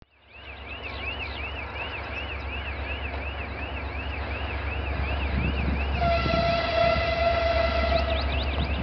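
Soviet-built M62 diesel locomotive approaching with a passenger train: a low diesel rumble that grows louder as it nears, and its horn sounding one steady multi-tone blast of about two seconds, starting around six seconds in. A high repeating chirp, about three a second, runs behind it.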